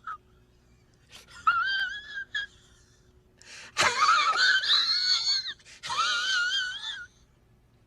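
A high-pitched wailing sound effect in three wavering bursts; the middle one is the loudest and longest.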